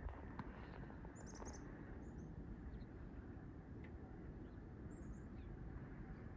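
Small birds chirping in short high bursts, about a second in, again near two seconds and near five seconds, over a steady low outdoor hum.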